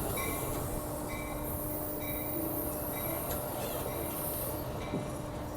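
Amtrak Capitol Corridor passenger train at the platform: a steady hum with one held tone, a faint high hiss and faint thin squeals coming and going, with no clear wheel rhythm.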